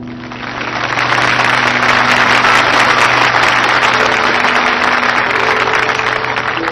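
Audience applauding loudly over continuing music, the clapping swelling up over the first second and holding.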